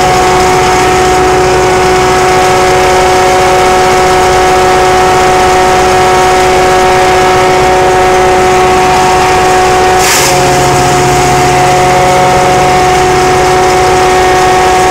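Tractor-driven chipper-grinder running at speed with a steady whine over the tractor's engine. About ten seconds in, a short rush of noise as a bundle of palm fronds is fed in and chopped, the whine briefly dipping under the load.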